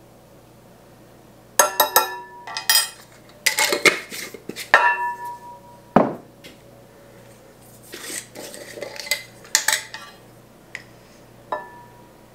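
A metal measuring spoon scraping and clinking against glass jars and a mixing bowl as powder is scooped and tapped in. It makes irregular runs of light clinks and taps, some with a brief ringing. About six seconds in there is one sharper knock as the spoon is set down on the stone countertop.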